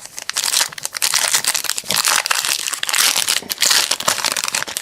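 Plastic wrapper of a trading-card pack crinkling and crackling as it is handled and torn open, a dense run of irregular crackles that stops shortly after the end.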